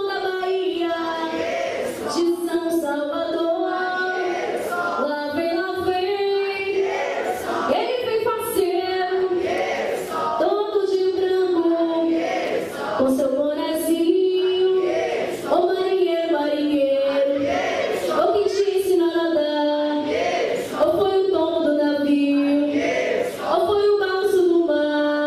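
A group of voices, mostly women's with some children's, singing a samba de roda song together on one melody line, with no instruments.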